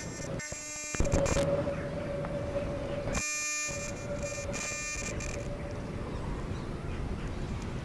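Door warning buzzer of vintage RET tram 2101 sounding in three short blasts, with a knock about a second in and a steady hum that stops about five and a half seconds in.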